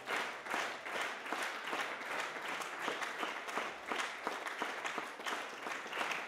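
Concert audience applauding: many people clapping steadily.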